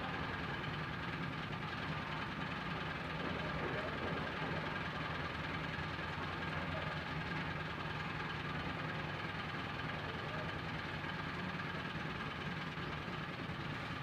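A steady low mechanical hum with an even background noise.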